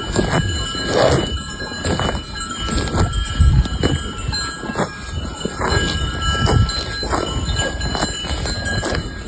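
Cowbells on cattle clanking irregularly as the animals move, several ringing tones overlapping.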